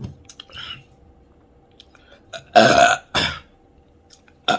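Loud human burps brought up by a carbonated fruit drink: two long burps close together about two and a half seconds in, and a short one near the end.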